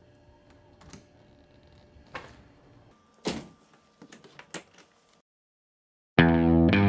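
A door with a knob and deadbolt being opened: a few faint clicks, then a sharp knock about three seconds in and two lighter ones, after which the sound cuts out. Loud guitar music starts near the end.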